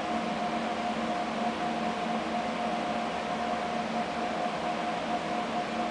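Steady mechanical hum with a constant mid-pitched whine, like ventilation fans or running machinery.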